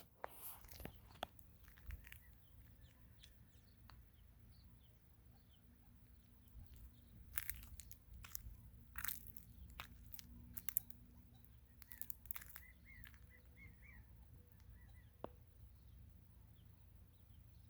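Quiet desert ambience: faint scattered bird chirps, with a short run of wavering chirps about twelve seconds in, over a low rumble. Sharp crunching clicks come every so often, several of them between seven and thirteen seconds in.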